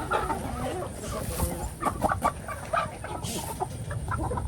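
Chickens clucking, several short calls among scattered sharp pecking-like clicks.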